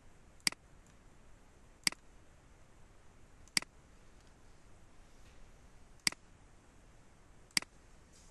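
Computer mouse button clicked five times, single sharp clicks spaced one to two and a half seconds apart, over a faint background hiss.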